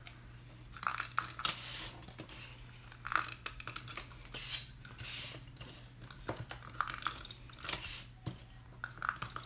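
Handheld adhesive tape runner pulled along cardstock tabs in several short, irregular strokes, with the card folded and handled in between, over a faint steady low hum.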